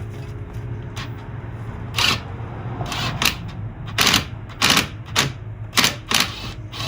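Hand tools clicking and clacking on metal while an A/C line fitting is worked in: about eight sharp, irregularly spaced strikes, the loudest in the second half.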